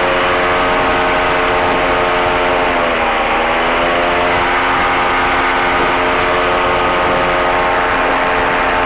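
Buccaneer II ultralight's two-stroke engine running in flight, picked up loud through the headset mic and COM radio. Its pitch dips briefly about three seconds in, then comes back up.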